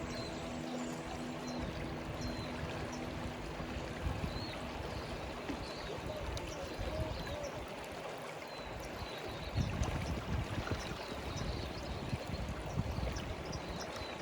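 Water of a stream or river running steadily, with a few short high chirps over it. A heavier low rumble sets in about ten seconds in.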